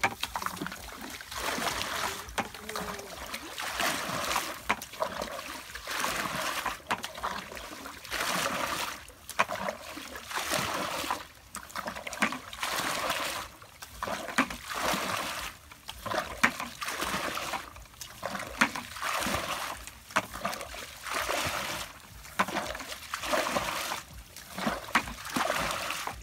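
Muddy ditch water being bailed with a plastic bucket: a splash of scooped and poured water about once a second, repeating evenly. This is the ditch being drained by hand to get at the fish.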